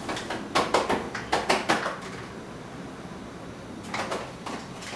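Light clicks and knocks of glass dessert cups and a glass dish being handled on a kitchen counter: a quick run of them in the first two seconds and a few more near the end.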